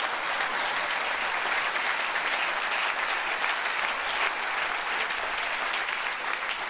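Theatre audience applauding: steady, dense clapping from many hands.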